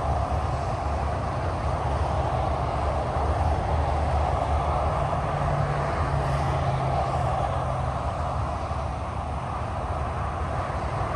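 Steady roar of interstate highway traffic: tyres and engines of cars and trucks passing at speed, with a low engine drone swelling for a few seconds midway.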